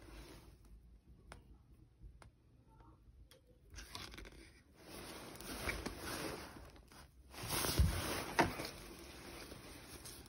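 Rustling and crinkling of a down jacket's glossy shell fabric as it is handled. It is mostly quiet with a few small clicks for the first few seconds, then comes in bouts, loudest about eight seconds in.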